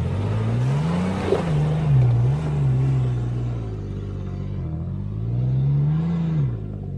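Off-road 4x4's engine floored in four-low, second gear, revving hard as it climbs an obstacle. The revs rise and fall several times, about every one to two seconds.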